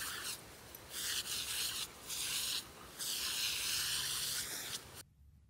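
Lawn sprinkler's water jet hissing in four bursts with short breaks, while a dog bites and snaps at the spray; the hiss breaks off suddenly near the end.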